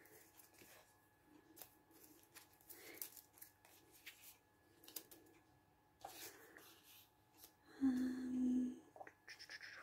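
Paper and card being handled on a journal page: soft scattered rustles and light taps, with a brief steady low tone lasting about a second near the end.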